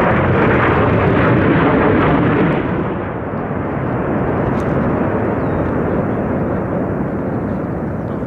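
Jet noise of a low-flying F-16 Fighting Falcon, loud for about the first two and a half seconds, then dropping and slowly fading as it flies away down the valley.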